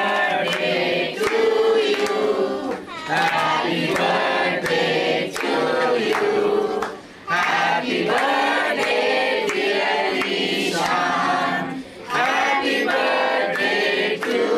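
A group of adults and children singing a birthday song together at the cake, in phrases broken by short pauses about every four to five seconds.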